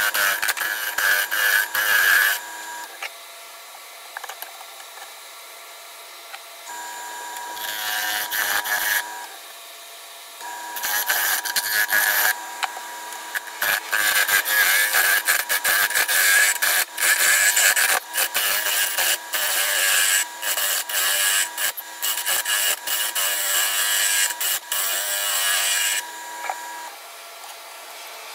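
Wood lathe running with a turning tool cutting the outside of the spinning bowl blank, a scraping hiss of wood coming off in spells: briefly at the start, again about seven seconds in, then almost without a break from about ten seconds to near the end. Between cuts only the lathe motor's steady hum is heard.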